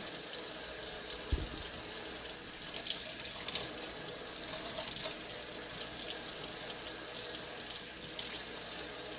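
Kitchen faucet running steadily into a stainless steel sink, with a brief low knock about a second and a half in.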